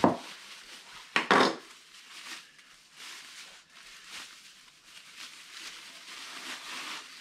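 Bubble wrap crinkling and rustling as it is unwrapped by hand, with two sharper, louder crackles, one right at the start and one about a second and a half in.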